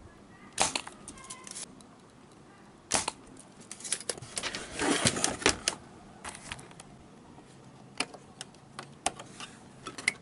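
Irregular sharp clicks, taps and scraping of metal tools on a television circuit board as an IC chip is desoldered and pried out with a screwdriver.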